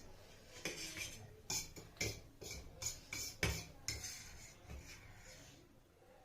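Cutlery clinking and scraping against dishes during a meal, a run of sharp uneven clicks that tails off near the end.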